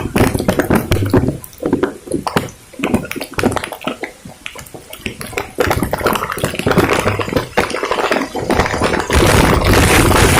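Heavy rain falling with wind on the microphone. Scattered drops strike close by at first, then it thickens into a dense, steady downpour near the end.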